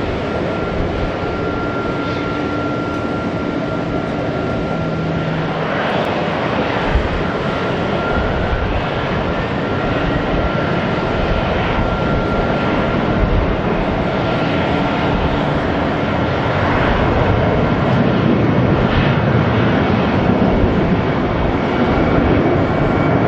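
Boeing 737 BBJ's CFM56-7 turbofan engines running as the jet taxis onto the runway: a steady jet hum with a thin high whine. The sound grows louder about two-thirds of the way through as the engines spool up for the takeoff roll.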